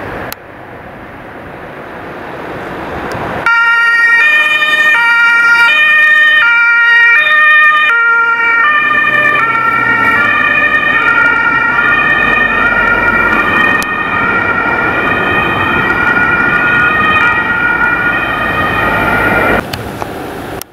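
German ambulance two-tone siren (Martinshorn), stepping back and forth between a high and a low note, starting about three seconds in after a short swell of vehicle noise. It cuts off abruptly near the end.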